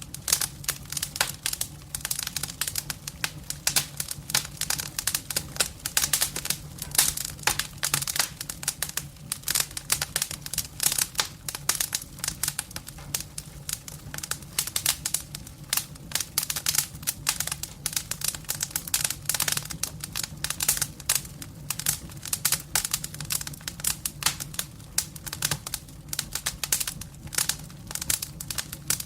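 Campfire burning, with dense, irregular crackling and popping over a low steady hum.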